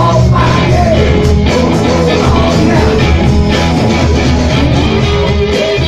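Live rock band playing: singing over electric guitars, bass guitar and drums.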